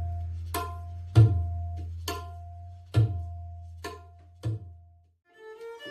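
Tabla played in slow, spaced strokes: sharp strikes ringing at one steady pitch, several with a deep bass boom held beneath them. The drumming stops about five seconds in, and a wavering melodic line begins just before the end.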